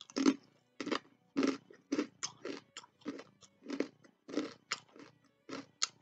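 Close-up crunching and chewing of a crisp cracker with a spread on it, a crunch roughly every half second, the loudest ones in the first bites.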